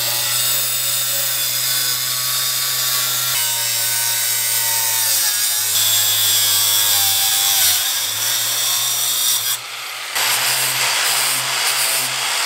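Makita angle grinder with a flap disc running and grinding along the edge of a sheet-metal door panel, a steady motor hum under a loud hiss. The sound dips briefly about ten seconds in, then picks up again.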